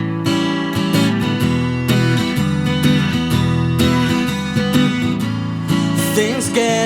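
Acoustic guitar strumming chords in a steady rhythm: the opening of a song.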